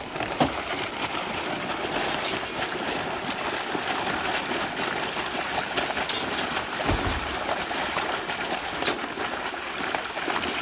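A steady rush of pouring, sloshing water as live climbing perch are released into a fish pond, with a few clicks and a low thump about seven seconds in.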